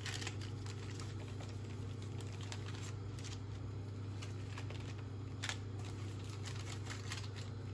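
Hands pressing and spreading oiled bread dough on parchment paper in a metal baking tray: soft rustling and light dabs, with a few faint clicks. A steady low hum runs underneath.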